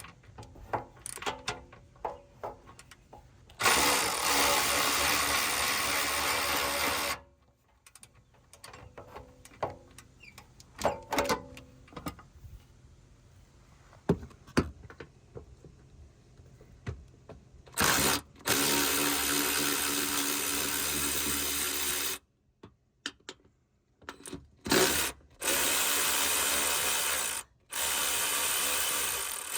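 A power tool running in bursts as the rear bumper bolts are loosened: one run of about three seconds, a longer one of about four seconds in the middle, then several short runs near the end. Between the runs are light metallic clicks and knocks of tools and hardware.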